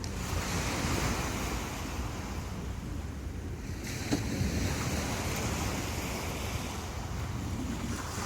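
Ocean surf washing onto a beach in hissing waves that swell and fade, over a steady low rumble of wind on the microphone.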